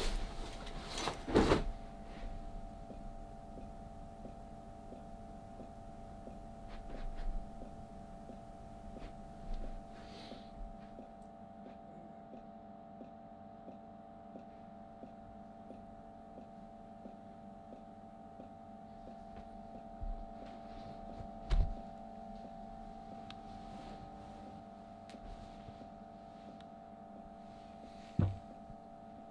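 A steady electrical hum with several fixed tones, broken by dull thumps: two in the first two seconds, one about twenty seconds in and one near the end.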